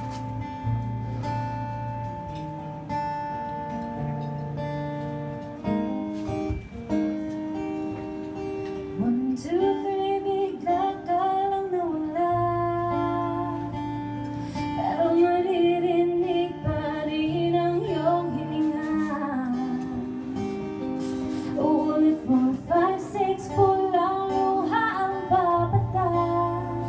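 Live acoustic guitar playing, joined about nine seconds in by a woman singing into a microphone.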